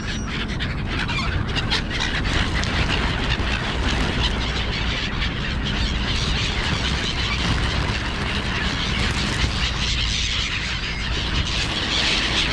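Steady outdoor background noise: a low rumble with an even hiss over it, a few faint clicks near the start, and no clear single event.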